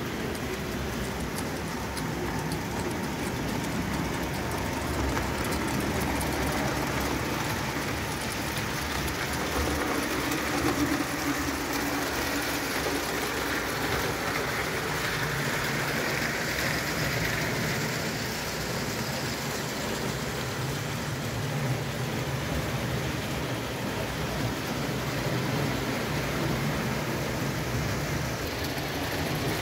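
1905 Bing live-steam 0 gauge tinplate locomotive running with its passenger cars on tinplate track: a steady hissing rattle of steam and wheels on the metal rails, with a low rumble underneath.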